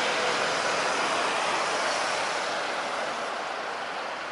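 Jet engines of a Boeing 737-800 running loud as the airliner rolls along the runway, a dense roar that eases off gradually.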